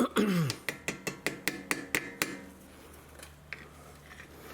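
Metal brake hardware being worked by hand: the anti-rattle spring clip being fitted onto a front brake caliper. A sharp metal knock, then a quick run of about nine light metallic clicks with a slight ring, about six a second, then a few faint ticks.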